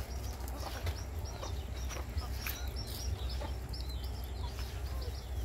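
Birds chirping: many short, high calls in quick succession, over a steady low rumble.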